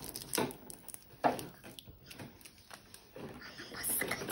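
Handling noises from a lip pencil and its packaging: a few sharp little taps or clicks in the first second and a half, then a soft rustle near the end.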